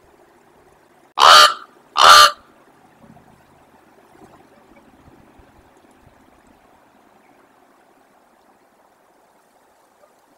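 Common raven calling twice: two loud, short calls close together about a second in.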